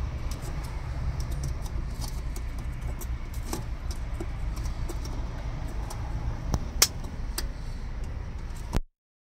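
Scattered light clicks and rattles of metal parts being handled behind a car headlight, over a steady low rumble, with one sharper click near the end. The sound cuts off suddenly just before the end.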